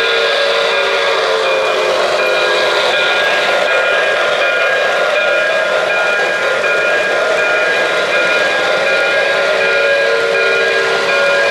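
O-gauge model trains running on three-rail track, a steady rolling rumble and hiss of wheels on the rails. A model steam locomotive's chime whistle sounds during the first few seconds and again near the end.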